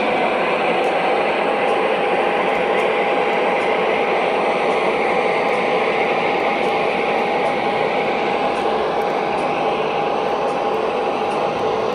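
O gauge model diesel locomotives running steadily, their onboard sound systems playing a diesel engine sound with a steady tone through it and faint regular ticking.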